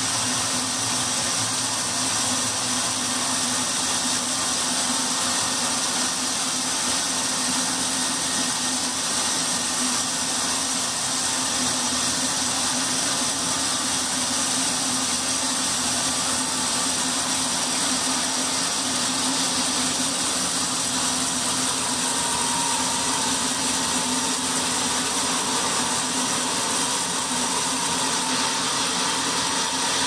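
Vertical band resaw running steadily with its blade cutting lengthwise through a large timber beam, a continuous mechanical whine and hiss.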